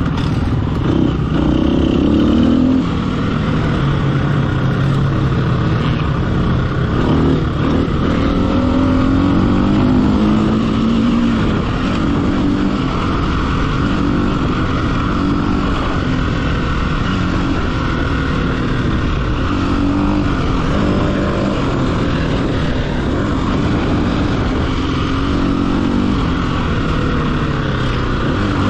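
Off-road racing dirt bike engine revving up and down again and again as the rider accelerates, shifts and backs off, with no let-up in the engine sound.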